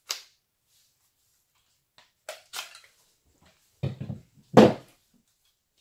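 Handling noises as the socket is pulled off a cordless impact wrench's square anvil: a sharp click at the start, a few light clicks a couple of seconds later, then two dull knocks, the louder one about four and a half seconds in.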